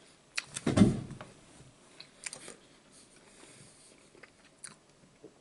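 Close-up chewing and biting of french fries, with scattered small clicks and a louder bump about a second in.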